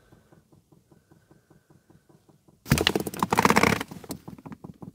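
Chinese diesel heater fuel dosing pump ticking rapidly in priming mode, about six clicks a second: the new 'silent' pump is still plainly audible while the fuel line fills. About three seconds in, a loud rustling burst cuts across it, and after that the clicks come through louder.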